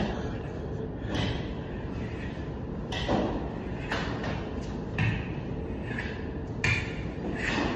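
Plastering trowel worked across a Venetian-plastered ceiling, making a handful of short, faint scrapes at irregular intervals of about a second, over a low steady room hum.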